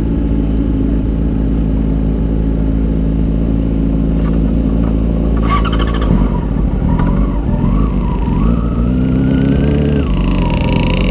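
A 2005 Yamaha R6's inline-four engine idling steadily, picked up by a camera mounted on the bike. About halfway there is a brief clatter, then the revs climb slowly for a couple of seconds and drop back near the end.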